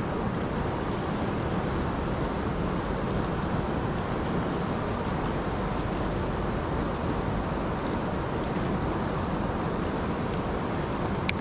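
River rapids rushing: a steady, even noise of white water, with a single sharp click just before the end.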